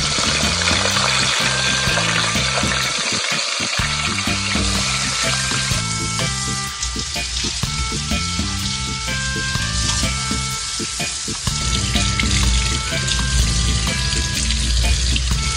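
Whole fish frying in a pan of hot oil: a steady, dense sizzle, thinning somewhat about six seconds in, under background music with a steady bass line.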